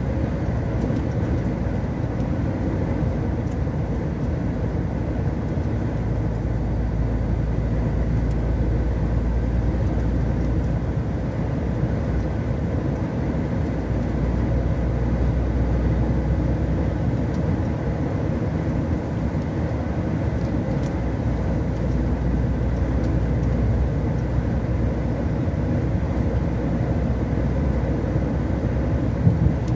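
Steady engine and tyre noise of a road vehicle driving at motorway speed, heard from inside the cab, with one short louder bump near the end.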